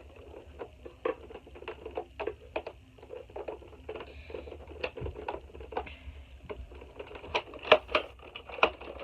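Plastic clicking and tapping as a toy blaster's parts are handled and pushed into place: a string of short clicks, a few a second, growing louder and quicker near the end.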